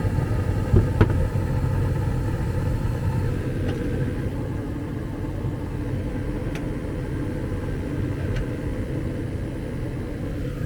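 ICP gas furnace running with its burners lit, a steady low rumble of the flames and inducer fan. About a second in come a couple of sharp clicks of a tool on metal, and a few faint ticks later. The burner orifices are misaligned, tilting the flames up into the heat exchanger inlet and producing over 1000 ppm carbon monoxide.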